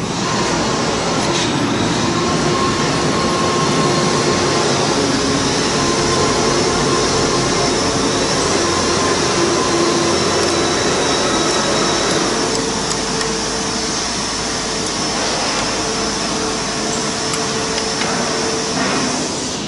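Steady workshop machinery noise: a motor running with a hiss and faint whining tones that drift slightly in pitch, easing a little in level about two-thirds of the way through.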